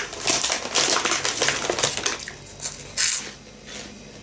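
Plastic snack bag of corn sticks crinkling and crackling as it is handled and sticks are pulled out, then one short, sharper crinkle about three seconds in.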